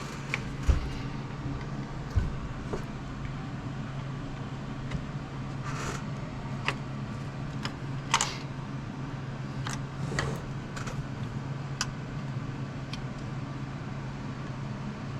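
Scattered light clicks and knocks of a small generator motor and its mounting plate being handled and pushed into a model helicopter's frame, over a steady low hum.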